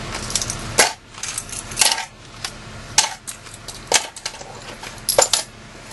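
Small metal keychains clinking as they are dropped back into a plastic cup, a sharp ringing clink about once a second, with a quick cluster near the end.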